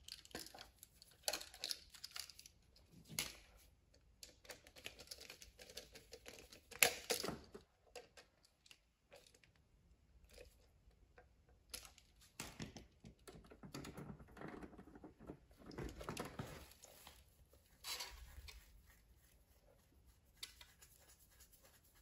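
Faint handling noise of a GFCI receptacle being wired: scattered clicks and rustles as copper conductors are fitted to its terminals and a screwdriver is worked, the loudest a sharp click about seven seconds in.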